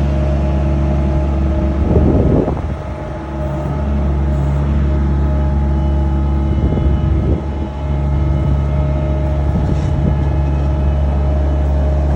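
Bobcat skid steer engine running steadily, with two short bursts of rougher noise, about two seconds in and again around seven seconds, where the engine note dips briefly.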